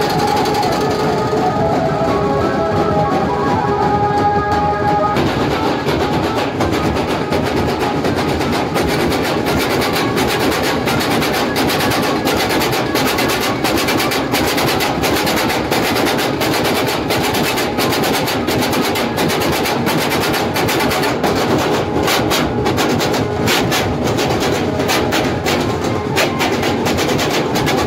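Loud percussion-led music: drums beaten in fast, dense strokes, with a few held notes over the first five seconds.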